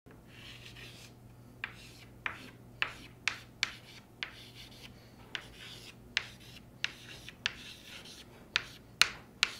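Chalk writing on a chalkboard: soft scraping strokes broken by about a dozen sharp, irregular taps as the chalk strikes the board, loudest near the end. A low steady hum runs underneath.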